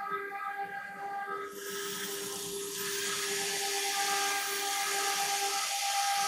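ELE1012 CNC router running, its spindle giving a steady high whine. About a second and a half in, a loud hiss builds up and continues over the whine.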